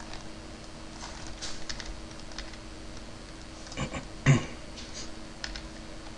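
Scattered clicks and taps of a computer mouse and keyboard, with a louder knock about four seconds in, over a faint steady hum.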